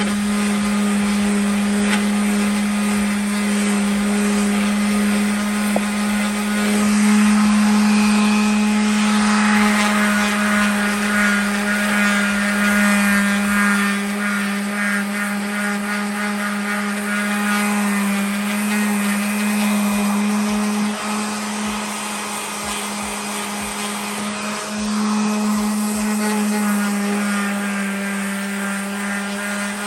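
Electric sander running steadily with 220-grit paper, sanding the table saw's top; its steady motor hum carries a rough scraping hiss that grows and eases as it is pushed across the surface.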